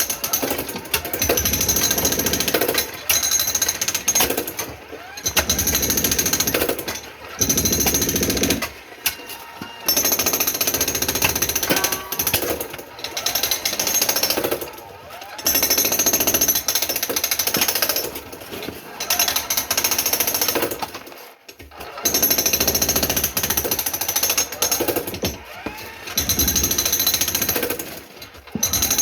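Jackhammer breaking up a concrete floor, running in bursts of a few seconds with brief pauses between.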